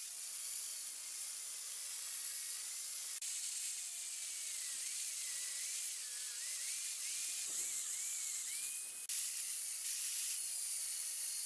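Steady high-pitched hiss with abrupt changes in level about three and nine seconds in. Faint wavering whistle-like tones sit under it in the middle stretch.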